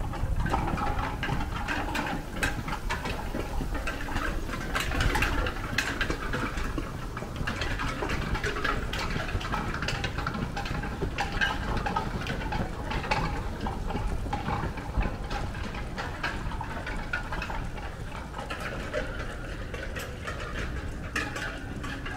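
Footsteps crunching in fresh snow, with wind buffeting the microphone and scattered sharp clicks.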